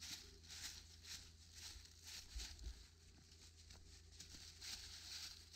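Footsteps crunching through dry fallen leaves at a steady walk, about two steps a second.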